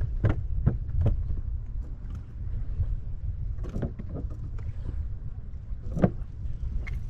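Steady low wind rumble on the microphone, with a series of knocks and thumps from gear being handled in a fishing kayak as a fish goes into the box; three quick knocks near the start, a cluster a little before halfway, and the sharpest knock about six seconds in.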